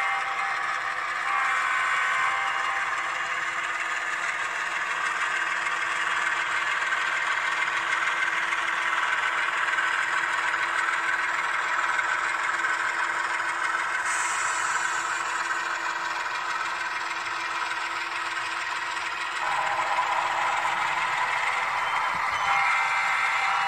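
HO-scale model freight train running on layout track, led by a ScaleTrains CSX GE ES44AH whose sound decoder plays a diesel engine through its small onboard speaker, with the wheels and cars clattering along the rails.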